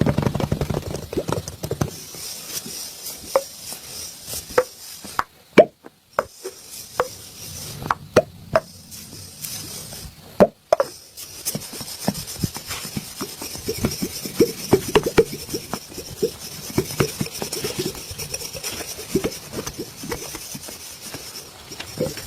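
Hands working on bare skin in a massage: an uneven run of sharp slaps, taps and knocks with some rubbing. The strokes turn quicker and more regular in the second half.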